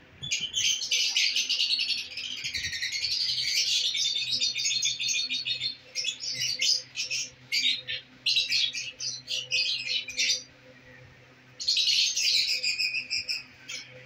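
Lovebirds chattering: a dense stream of rapid, high chirps for the first few seconds, then shorter bursts, a pause about ten seconds in, and a last burst near the end.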